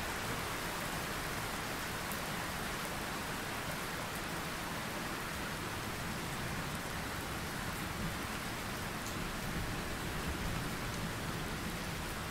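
Steady rain, an even hiss with a few faint drop ticks scattered through it.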